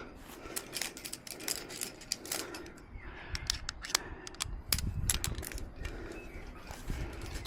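Climbing hardware clinking and rattling, with quick irregular metallic clicks from carabiners and quickdraws knocking together on a harness, over rustling and rubbing of the climber's movements.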